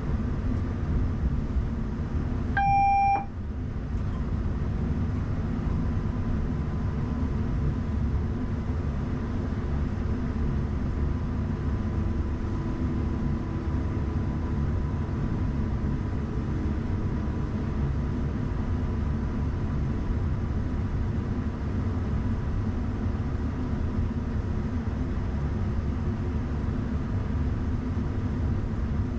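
Class 331 electric multiple unit running along the line, heard from the driver's cab: a steady low rumble of the wheels and running gear. About three seconds in, a single short electronic beep sounds in the cab.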